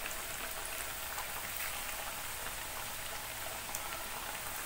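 Thattai (flat rice-flour crackers) deep-frying in oil kept on a low flame: a steady sizzle of bubbling oil with faint fine crackles.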